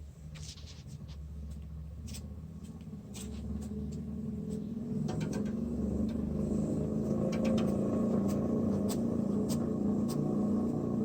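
Sunny Health & Fitness SF-B1002 belt-driven indoor cycling bike's flywheel spinning up as it is pedaled: a low steady drone that grows louder over the first few seconds and then holds, with scattered clicks. The owner calls it a very strong vibration and thinks something inside the bearing may be clicking, or the flywheel may be at fault.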